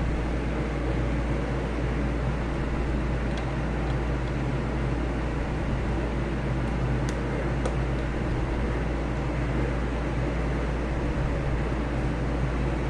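Steady low hum with a hiss, unchanging throughout, with a few faint clicks near the middle.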